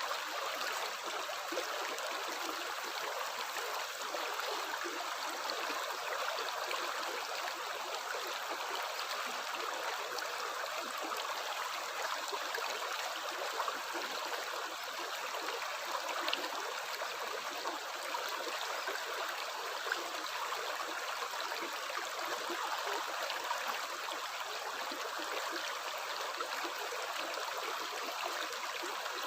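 Running water: a steady, even rush of flowing water that does not break or change.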